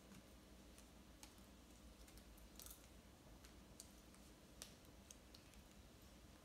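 Near silence with faint, scattered sharp clicks and taps as paper and foam craft pieces are cut, handled and pressed into place.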